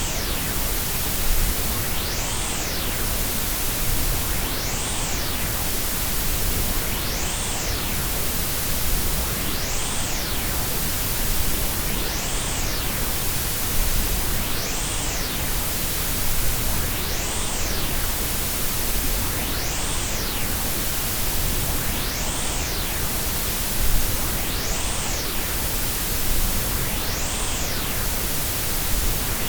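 Combined white, pink and Brownian noise: a steady, even hiss with a deep rumble underneath. A faint sweep in the treble rises and falls about every two and a half seconds.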